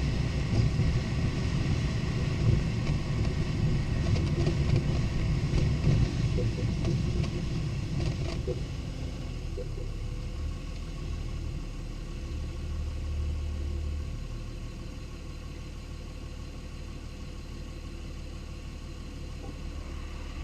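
Lexus IS250 on the move: engine and road noise, louder and rougher for the first half, then settling to a lower, steadier run from about halfway through.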